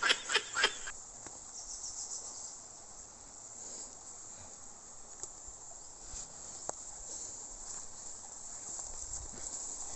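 Steady high-pitched chorus of insects in tropical forest undergrowth, with a few faint ticks.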